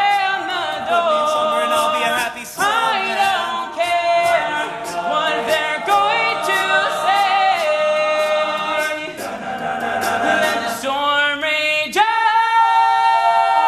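Male a cappella group singing in close harmony without words the recogniser could catch, over a regular ticking beat. About twelve seconds in, a new chord comes in sharply and is held.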